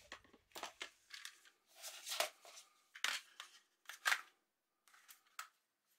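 Plastic airsoft rifle magazines handled in gloved hands: a quiet string of light clicks and taps, the sharpest about two, three and four seconds in.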